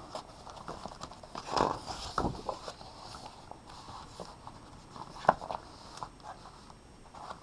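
Pages of a large picture book being turned and pressed flat by hand: soft paper rustles and light knocks, loudest about two seconds in, with a sharp tap about five seconds in.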